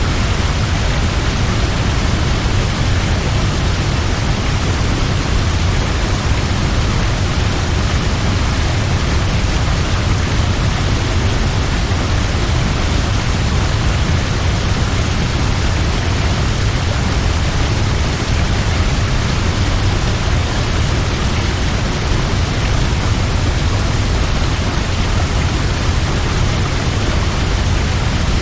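Large waterfall: a steady, loud rush of falling water with a heavy low rumble underneath.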